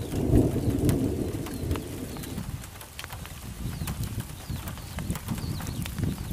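Low rustling and thudding of a wild boar running through long grass, loudest in the first two seconds or so, with birds chirping short falling calls throughout.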